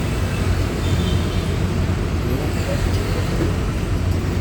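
Steady low mechanical rumble with no clear rhythm.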